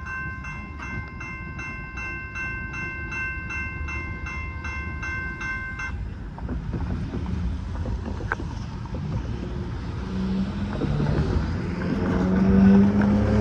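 Railroad crossing bell ringing rapidly, about three strokes a second, over the low rumble of a passing train; the bell stops about six seconds in. Near the end a low engine drone grows louder.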